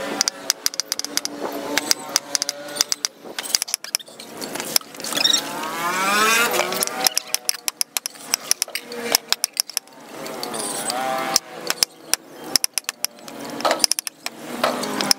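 Meat cleaver chopping raw meat on a round wooden chopping block: quick bursts of sharp chops with short pauses between them. Around the middle, a passing motor vehicle's engine rises in pitch.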